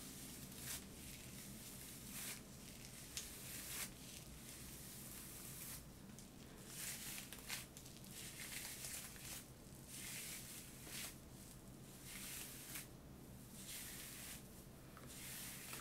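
Unbrush detangling brush pulled through wet, conditioner-coated natural hair: faint, irregular brushing strokes, roughly one a second.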